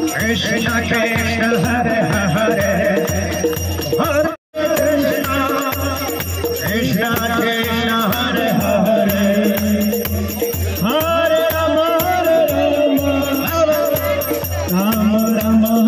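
Street kirtan: men singing a devotional chant through a microphone and small amplifier, with hand cymbals (kartals) jingling over a steady low beat about three times a second. The sound cuts out for a moment about four seconds in.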